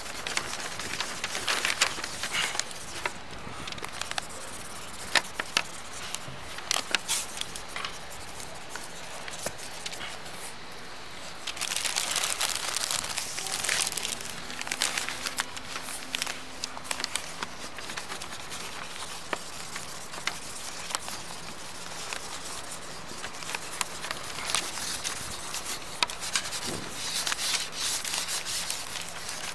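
Scratching and rubbing on paper as marks are drawn by hand: a dry, scratchy rustle with frequent small clicks and crackles, louder for a couple of seconds about twelve seconds in.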